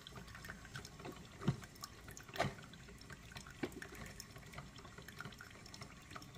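Coffee maker brewing into a ceramic mug: a thin stream of coffee trickling in, with faint irregular drips and a few louder pops.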